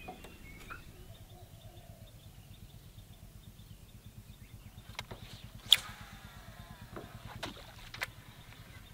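A boat motor running steadily at low speed, a low, evenly pulsing throb, with a few sharp clicks and knocks in the second half, one of them loud.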